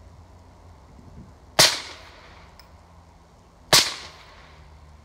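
Two AR-15 rifle shots about two seconds apart, each a sharp crack that trails off briefly.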